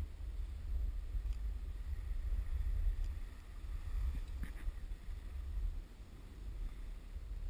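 Wind buffeting the microphone of a camera carried by a downhill skier: an uneven low rumble.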